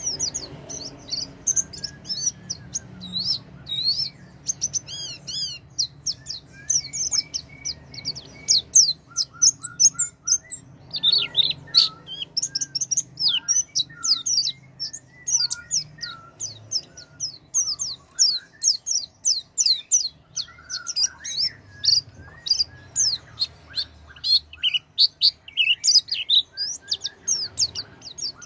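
White-eyes (pleci) singing: a fast, continuous chatter of high, thin chirps and trills, with a few lower notes scattered through it.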